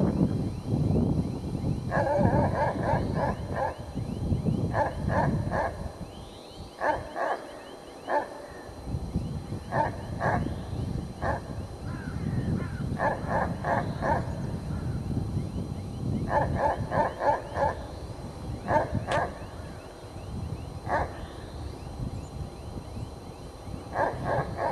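A dog barking in quick bursts of three to six barks every few seconds, over a steady low rumble.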